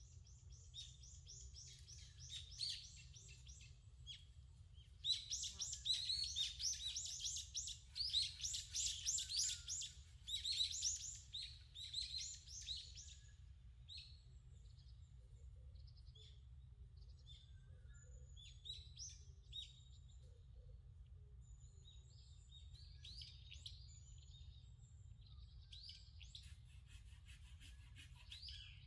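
Wild songbirds singing in a forest, with fast runs of repeated high notes that are loudest in the first half, then scattered calls, then another run near the end. A steady low rumble lies underneath.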